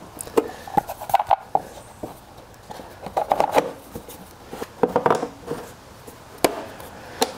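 Plastic air filter cover and filter being handled and fitted onto a lawn mower engine: a series of light knocks and rattles, then two sharp clicks near the end as the cover is pressed into place.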